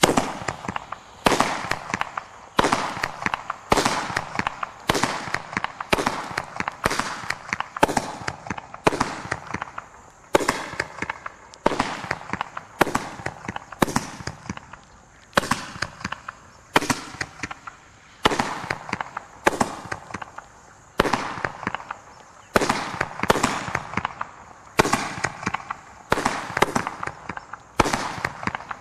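Winda Confetti Cake, a 30-shot consumer firework cake that fires paper streamers, shooting off its tubes one after another at about one shot a second. Each shot is a sharp report that trails off in a short hiss.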